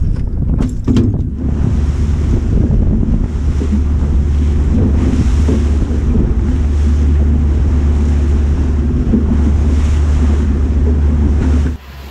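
Small outboard-powered fishing boat running at speed: heavy wind buffeting the microphone over a steady engine drone and the rush of water. A few knocks come in the first second or so, and the sound drops off abruptly near the end.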